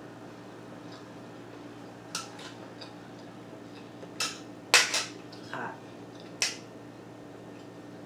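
Cutlery clinking against dinnerware: about six sharp clinks spread out, the loudest about halfway through.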